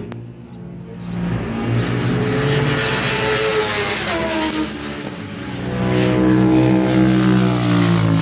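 Racing motorcycles at full throttle on a track straight, their engines screaming at high revs, the pitch rising and falling as bikes pass. The sound eases about five seconds in and swells again as another bike comes by near the end.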